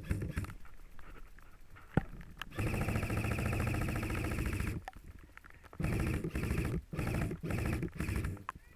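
Airsoft rifle firing on full auto: a long burst of about two seconds, then three shorter bursts, with a couple of sharp clicks just before.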